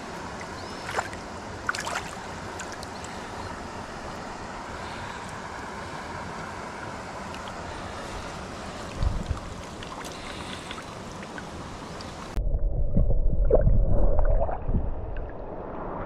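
Shallow river water running over stones, with a few small knocks and splashes. About twelve seconds in, the sound suddenly turns muffled and much louder, low sloshing and rumbling as the microphone is dipped into the water, then eases off.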